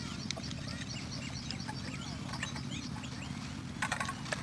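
Small birds chirping in quick repeated notes over a steady low hum, with a few sharp clicks near the end.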